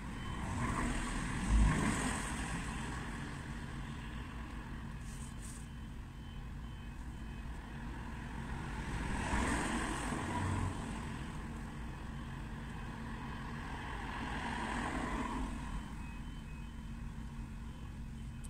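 Road traffic passing a level crossing: three vehicles swell past, about a second in, around the middle and later on, over a steady street din. A faint electronic beeping repeats in the background, clearest near the start and near the end.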